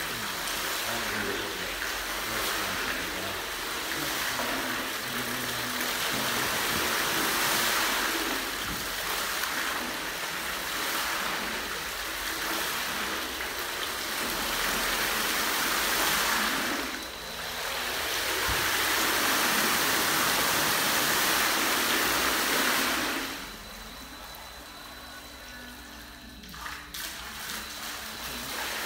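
Water from a test fountain's jets splashing back into its round tank, a steady rushing patter whose loudness follows the jet sequence. It dips briefly a little past halfway, then drops much quieter about four-fifths of the way through as fewer jets run, and picks up again right at the end.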